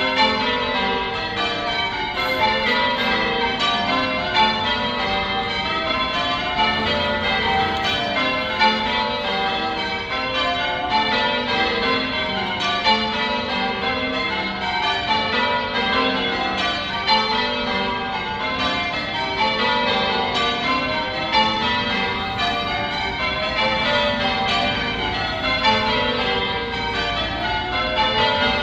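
Church bells ringing a continuous peal, a steady stream of overlapping bell strikes following one another without pause.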